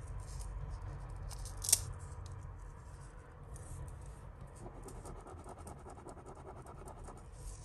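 Small metal jewellery pieces being handled and shifted on a table: light scratching and clicking, with one sharper click nearly two seconds in and a run of fast, small ticks in the second half, over a steady low hum.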